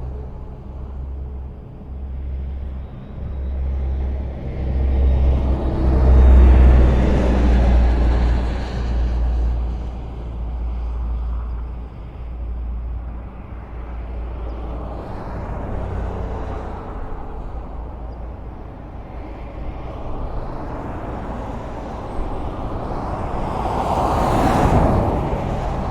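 Highway traffic: a steady low rumble of cars on the road, swelling loudest about six seconds in and again near the end as vehicles pass.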